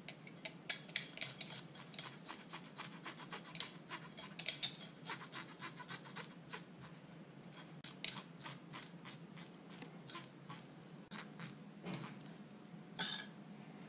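The back of a kitchen knife scraping scales off small sand smelt on a worktop: a run of quick scrapes, thick and fast for the first five seconds or so, then sparser strokes, with one louder scrape near the end.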